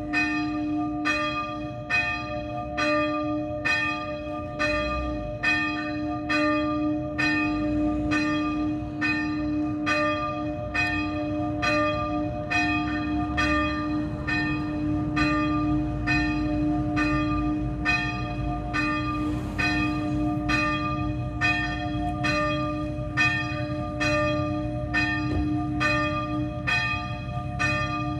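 A single small church bell (the sonello) swinging and ringing, struck evenly about one and a half times a second, its low hum sounding on between strokes.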